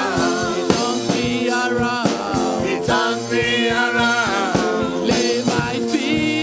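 Live gospel praise-and-worship music: several women singing into microphones over a steady drum beat.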